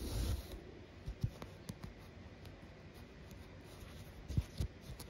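Faint rustles and small ticks of hand cross-stitching: needle and embroidery floss drawn through stamped fabric. A soft bump and rustle open it, and the sharpest ticks come a little over four seconds in.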